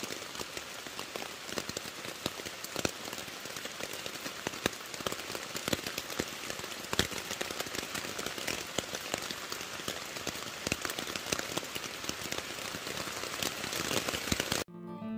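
Steady rain falling on a tent, heard from inside: a dense hiss with many separate drops striking the fly. It cuts off suddenly near the end, and acoustic guitar music begins.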